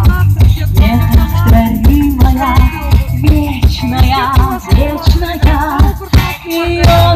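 A vocal group singing a song with vibrato over a loud accompaniment with a steady, heavy bass beat.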